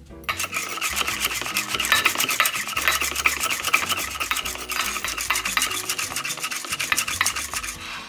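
A push-down rotary whisk pumped rapidly up and down in a glass measuring cup of hot milk, in a quick run of strokes. It is frothing the milk for a latte, to about double its volume. Starts a moment in and stops just before the end.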